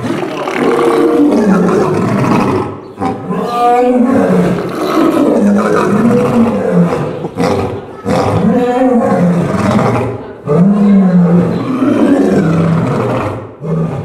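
White lion roaring loudly, a run of deep roars whose pitch swells and falls, with brief breaks between bouts.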